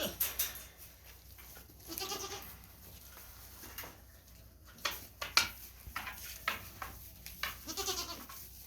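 Nigerian Dwarf goats bleating in short calls, about two seconds in and again near the end, with sharp clicks and rustling between the calls.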